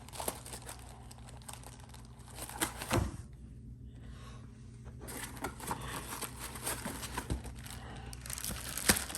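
Plastic packaging crinkling and rustling as unboxed parts are handled, with scattered light clicks and a sharper click near the end.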